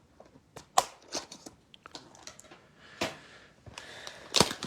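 Hands opening a sealed box of trading cards: scattered sharp clicks and snaps of cardboard and packaging being torn and handled, with a louder crackling rip near the end.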